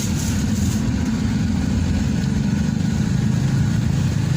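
Van engine and road noise heard from inside the cabin: a steady low rumble with a light hiss.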